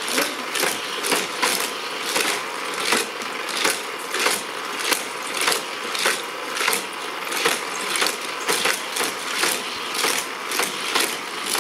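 Hot Wheels Criss Cross Crash track set running: its motorized boosters with rubber rollers whir steadily while die-cast toy cars clatter over the plastic track, giving a rapid, even run of clicks about three a second. It is very noisy.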